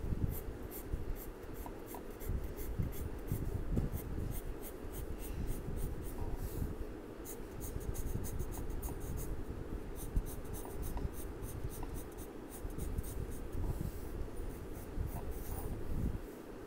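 Light green colour pencil scratching on paper in quick, repeated hatching and cross-hatching strokes, shading a leaf.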